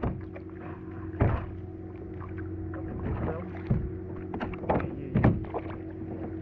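Splashing and water sloshing against a plastic kayak as a hooked largemouth bass thrashes alongside and is swung aboard, with several irregular knocks on the hull. A steady low hum runs underneath.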